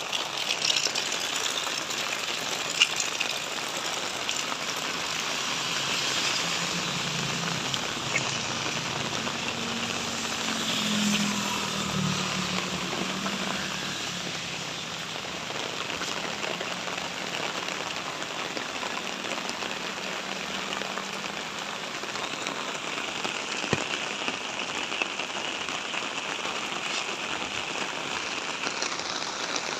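Steady rain falling, with scattered sharper drop hits. A faint low drone that bends slightly in pitch rises and fades around the middle.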